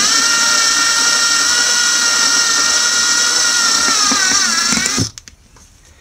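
A small power drill running steadily as its larger bit takes the head off a rivet on a die-cast toy car's base. The drill's pitch sags briefly as the bit bites, then the drill stops about five seconds in.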